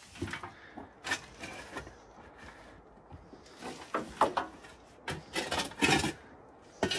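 A shovel digging into dirt and rock: irregular scrapes and knocks, a handful of strokes, with the louder ones about a second in and around four to six seconds in.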